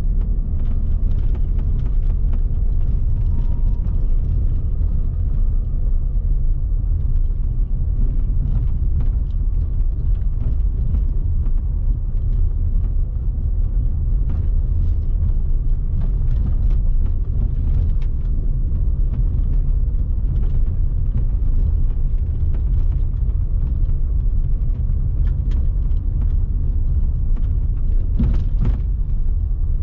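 A car driving steadily, a loud, even low rumble of engine, tyre and wind noise, with scattered small clicks and knocks and a short cluster of them near the end.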